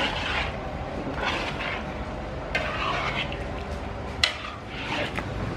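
Metal spatula stirring chicken through thick soy sauce in a large aluminium wok, scraping in repeated strokes, with a sharp clank of the spatula against the pan about four seconds in.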